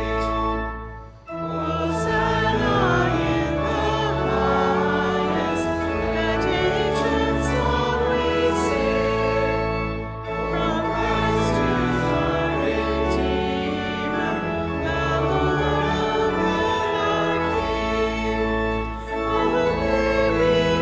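Voices singing a hymn in a church with sustained organ-like accompaniment, in phrases with short breaths between them about a second in and again about ten seconds in.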